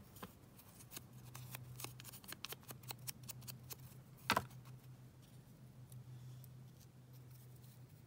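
Faint clicks and taps of hand paper-crafting work with ink and paper, close together for the first four seconds, with one louder knock about four seconds in, over a steady low hum.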